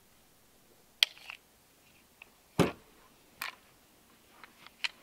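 Handling noises from a CZ P10 C 9mm pistol: a sharp metallic click about a second in, a heavier knock a little after two and a half seconds as it is set down on the table, then a few lighter clicks.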